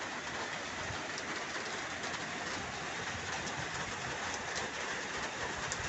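Heavy rain falling steadily: a dense, even hiss with scattered ticks of drops.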